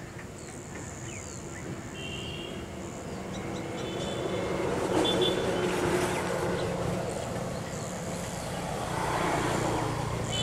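A passing motor vehicle makes a rushing noise that swells to a peak about five seconds in, eases, and builds again near the end. Short high chirps sound over it.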